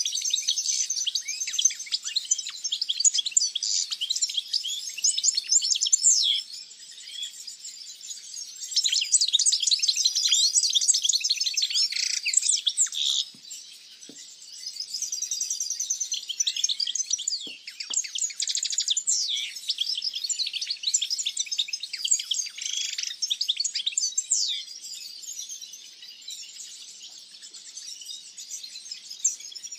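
A chorus of many small caged songbirds chirping and singing at once, with fast overlapping twitters and trills. It thins out for a few seconds now and then and grows quieter towards the end.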